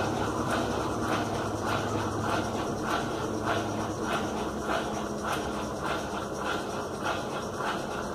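Washing machine running, a steady wash of noise with regular pulses about twice a second and a low motor hum that drops away about halfway through.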